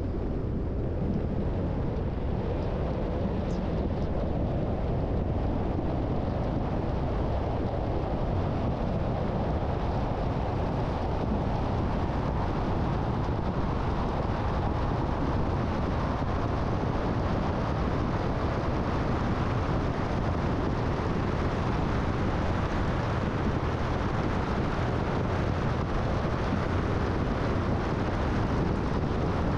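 Steady road noise of a car at freeway speed: tyre rumble and wind, with the hiss growing stronger after about ten seconds.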